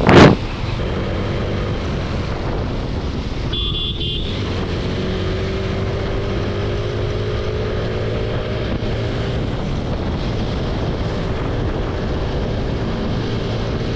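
TVS Apache RTR 160 4V single-cylinder motorcycle engine running steadily under way, with road noise. A loud brief thump comes right at the start, and a short horn beep about four seconds in.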